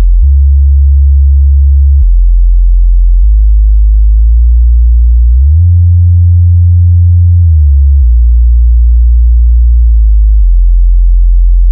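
Subwoofer test tones: loud, deep sine tones holding steady and stepping between low pitches every second or two. The pitch glides up about halfway through and back down a couple of seconds later.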